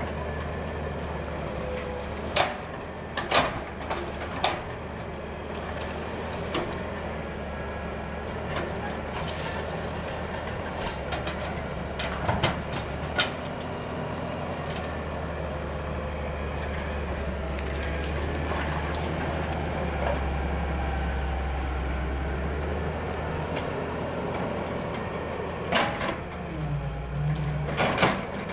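Excavator's diesel engine running steadily, with a few sharp knocks from the machine's metal parts, a few near the start and again near the end.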